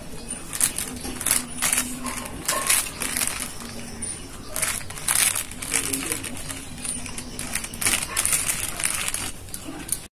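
A thin plastic sheet crinkling and rustling in short bursts as fingers gather grated coconut off it and drop it into a steel bowl.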